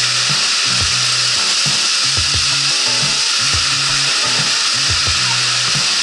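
Waterfall pouring over a cave mouth: a steady, loud rush of falling water, with drops splattering close by on the rocks.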